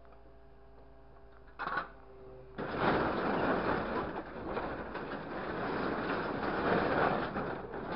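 A grapple truck's engine and hydraulic pump hum steadily, with a single short clank a little under two seconds in. Then, from about two and a half seconds, a loud, sustained rattling and scraping of scrap corrugated metal sheets as the grapple works a load into the steel truck bed.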